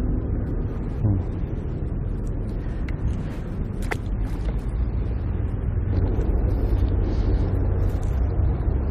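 Steady low outdoor rumble, with a single sharp click about four seconds in.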